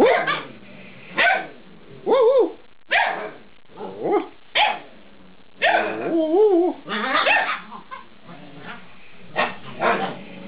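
Eight-week-old Alaskan Malamute puppies barking and yipping in a string of short calls. A couple of the calls bend up and down in pitch into brief howling "woo" sounds.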